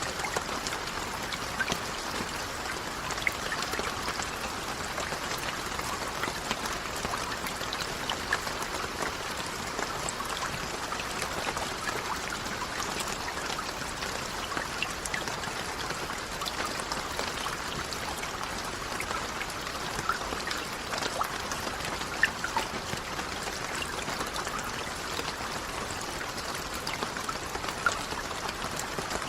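Steady rain: an even hiss of falling water, dotted with many small sharp drop ticks.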